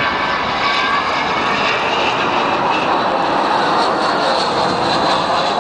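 Avro Vulcan XH558's four Rolls-Royce Olympus turbojets during a display pass: steady, loud jet noise that swells a little midway.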